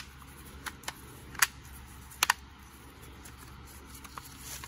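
Sharp plastic clicks and taps from a Hoover SpinScrub's clear plastic brush housing and its brush rolls being handled as the rolls are seated. There are about half a dozen separate clicks, the loudest a close pair a little over two seconds in.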